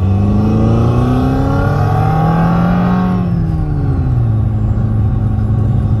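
Simulated road-motorcycle engine sound played through a Renault Clio 4's speakers by a Bluetooth engine-sound simulator, with the car's own engine and road noise under it. The pitch rises as the car accelerates, falls about three seconds in as the revs drop at a gear change, then holds steady.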